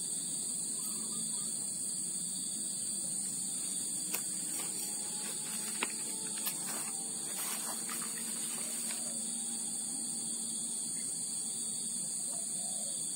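Steady high-pitched drone of an insect chorus, with a few faint clicks about four to six and a half seconds in.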